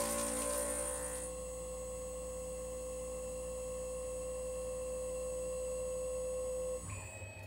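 CNC milling machine spindle turning a homemade fly cutter at 3500 RPM. The cutter is cutting metal for about the first second, then the spindle runs clear of the work with a steady whine. Near the end the whine cuts off and its high tone falls as the spindle winds down.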